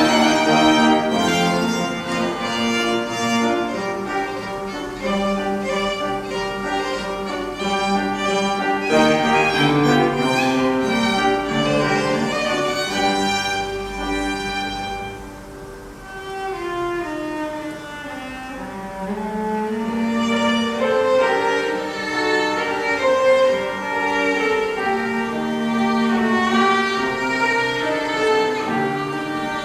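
Piano trio of violin, cello and piano playing a classical piece, with sustained bowed notes over the piano. Midway the music softens briefly, then builds back up.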